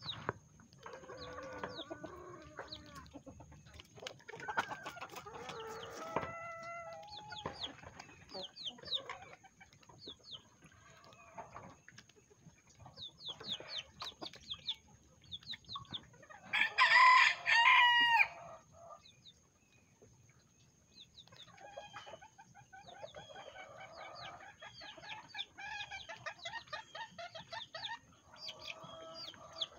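Bantam chickens clucking and chirping as they feed, with one loud rooster crow of under two seconds about seventeen seconds in.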